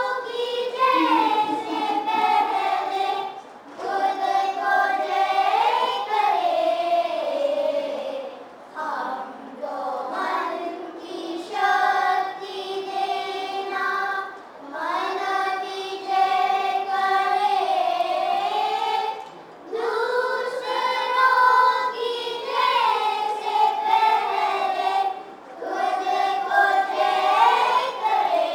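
A group of children singing a Hindu prayer together, in sung phrases a few seconds long with short breaks between them.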